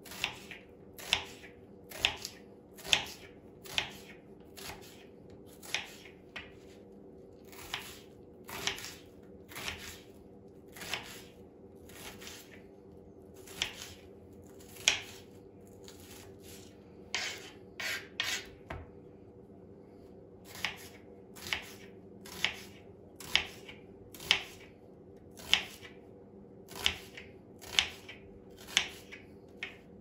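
Kitchen knife dicing an onion on a plastic cutting board: a steady run of crisp knocks, about one or two a second, with a short pause about two-thirds of the way through.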